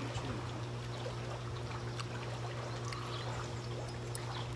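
Whole squid bubbling at a steady boil in a pan of water and olive oil on a portable gas burner. Under it runs a steady low hum, with a few faint clicks.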